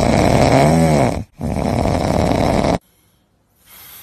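A sleeping man snoring loudly: two long snores, the first ending with a rising-then-falling note, then it stops about three seconds in.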